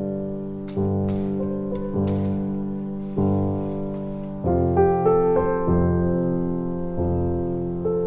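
Background piano music: slow chords struck about once a second, each fading away before the next.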